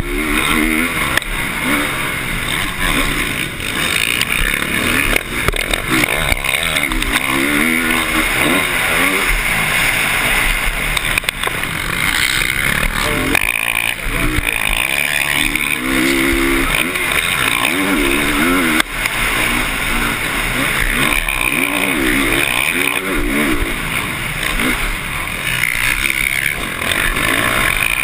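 Motocross bike engine revving up and down as the rider accelerates and shifts around the track, heard from a camera on the bike, over a constant rushing noise.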